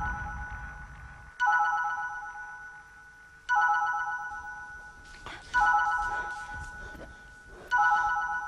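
Mobile phone ringtone: a bell-like chime of several notes that strikes and fades, repeating about every two seconds, four times.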